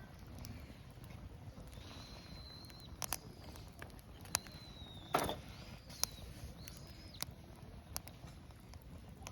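Wood fire crackling, with sharp pops about once a second, the loudest about five seconds in. A faint thin high whistle comes and goes several times, each lasting about a second.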